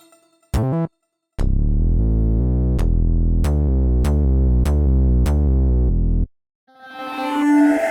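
Roland JD-800 software synthesizer presets playing. A short note, then a deep bass sequence of fast repeating notes with a sharp click about every 0.6 s, like a drum machine, stopping suddenly about six seconds in. Near the end a sustained chord swells in.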